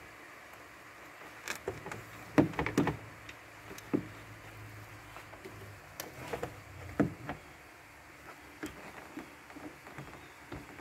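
Irregular knocks and clatter, loudest in a cluster about two and a half seconds in and again around seven seconds, over a faint steady hum.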